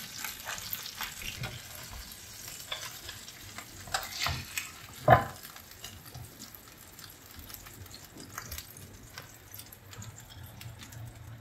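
Rava-coated pomfret frying in shallow oil, sizzling and crackling steadily, while a spatula scrapes and knocks against the pan as the fried fish is lifted out; one sharp knock about five seconds in.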